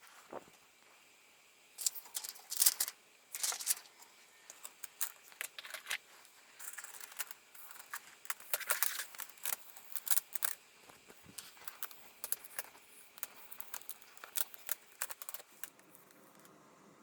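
Irregular light clicks, taps and short scrapes of hands handling a laptop's screen assembly while a replacement LCD panel is fitted, busiest in the first half.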